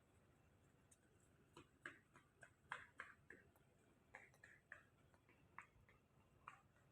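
Faint, irregular light clicks and taps, several a second in short clusters, over near-silent room tone.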